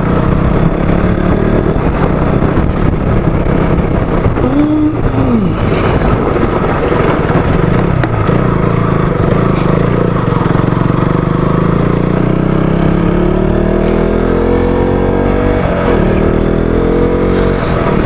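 Motorcycle engine running steadily under way, with wind rushing over the microphone. Its pitch climbs gradually through the second half as the bike speeds up.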